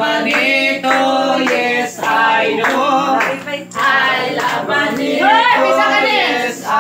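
A group of people singing together at full voice, with hand clapping.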